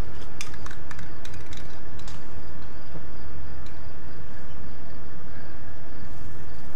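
Steady outdoor background noise with a low rumble, and a few faint clicks in the first two seconds.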